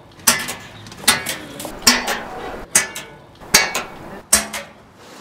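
A series of sharp metallic clanks at an even beat, about one every 0.8 seconds, each ringing briefly.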